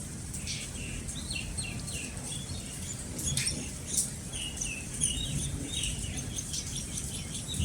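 Small birds chirping in quick series of short calls over a steady low background of rain.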